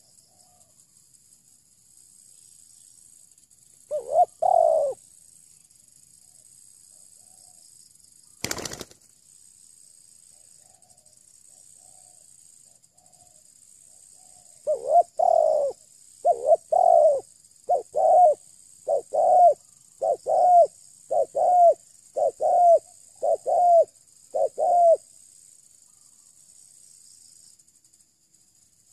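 Spotted dove cooing: one short call, then a run of about ten loud coos, roughly one a second, with fainter coos between. A single sharp click comes about a third of the way in, over a faint steady high-pitched drone.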